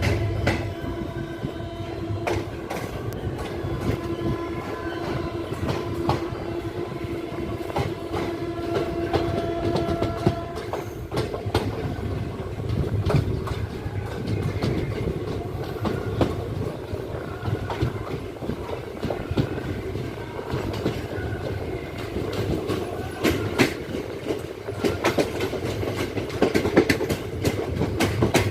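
Passenger train rolling past, its wheels clattering and knocking over the rail joints over a continuous low rumble, the knocks growing stronger near the end. A steady pitched tone sounds over it for the first ten seconds or so, then stops.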